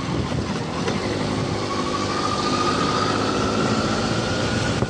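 Motorcycle running while being ridden along a road, with wind noise over the microphone. A faint whine rises slowly in pitch through the middle as the bike gathers speed.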